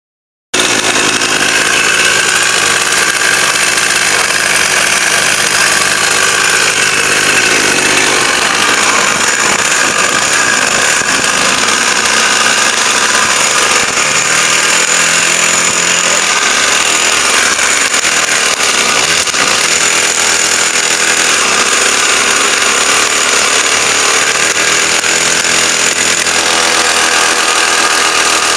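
49cc two-stroke mini motocross bike engine running steadily, its pitch rising and falling a few times in the second half as the revs change.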